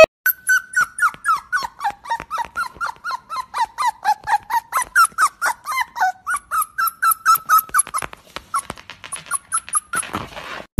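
A dog's rapid high whimpering: short squeaky calls that each fall in pitch, about four or five a second, stopping shortly before the end.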